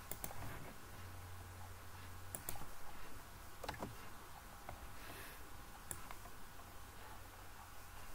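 Scattered clicks of a computer mouse, a second or so apart, over a faint low hum.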